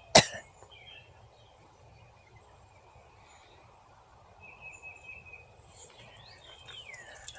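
Birds calling against faint steady background noise: a short whistled note near the middle and a few falling, whistled calls near the end. A short sharp click just after the start is the loudest sound.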